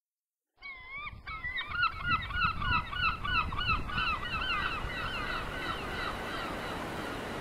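A rapid series of repeated, pitched gull calls, several birds overlapping, that starts abruptly about half a second in and fades out near the end. A steady wash of surf runs beneath them.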